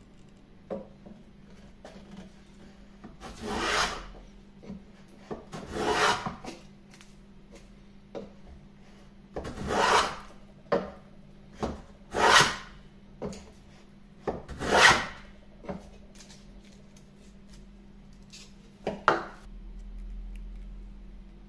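Wooden hand plane pushed along a board, taking shavings: about six separate swishing strokes a few seconds apart, with light knocks of the plane between them.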